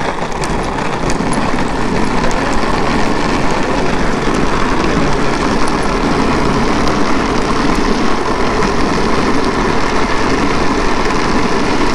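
Loud, steady rushing noise of wind on the camera microphone and a bicycle's tyres rolling on asphalt at speed.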